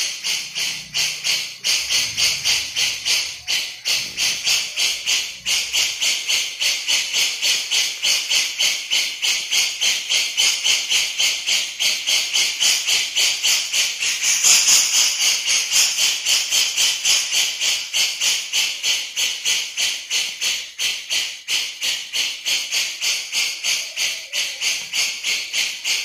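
Cucak jenggot (grey-cheeked bulbul) giving its 'besetan' call: a continuous, rapid, harsh chattering that pulses about four times a second and swells a little halfway through.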